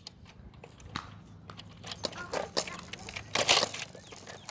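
Nerf blasters firing foam darts: a few scattered sharp pops, the loudest cluster about three and a half seconds in.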